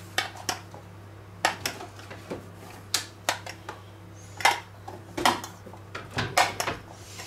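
A metal fork tapping and scraping against a clear plastic container, knocking chopped meat and gherkins out into a steel bowl: a dozen or so irregular sharp clicks, some in quick pairs.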